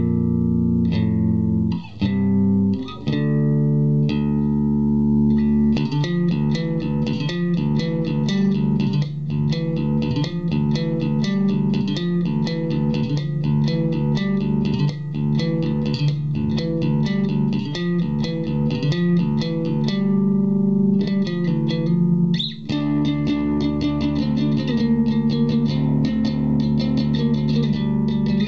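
Electric bass guitar, a '62 reissue Fender Jazz Bass, played fingerstyle through an Orange Terror Bass 1000 valve and Class D hybrid head into a speaker cabinet, with a scooped, bright tone. A few held notes at first, then a fast run of plucked notes from about six seconds in, with a brief break a little past twenty seconds.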